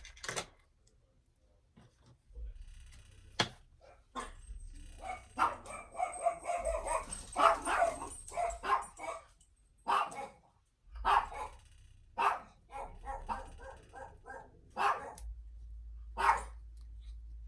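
A dog barking repeatedly: a dense run of barks through the middle, then scattered single barks.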